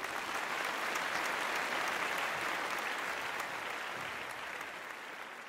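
Crowd applauding, many hands clapping in an even patter that slowly tapers off near the end.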